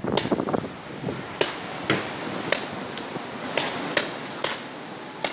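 Paintball markers firing: sharp single pops at irregular intervals, about eight in five seconds.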